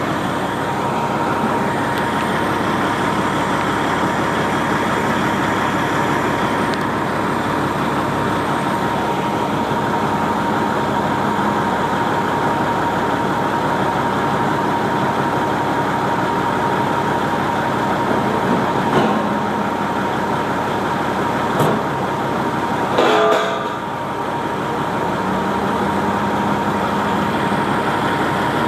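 Heavy truck engine running steadily, with a steady high whine over it. Three sharp knocks come in the last third, the last one the loudest and ringing briefly.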